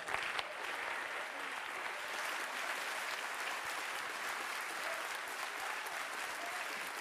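Audience applause, starting suddenly and going on at an even level.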